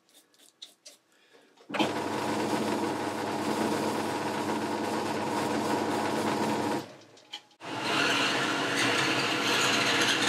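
Boxford metal lathe starting up about two seconds in and running steadily, with a hand file held against the spinning knurled nut to take off the sharp edges the knurling raised. The lathe stops about seven seconds in and starts again a second later.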